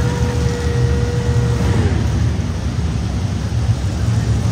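Monster truck engine running with a heavy, steady low rumble, and a held high note that ends about two seconds in.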